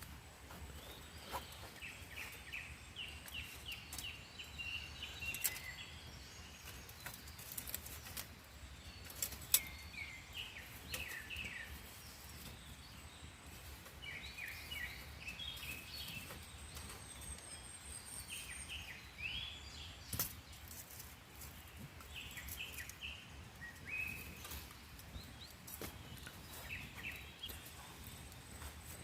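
Small wild birds chirping and singing in quick runs of short notes, with a few sharp clicks or snaps between them.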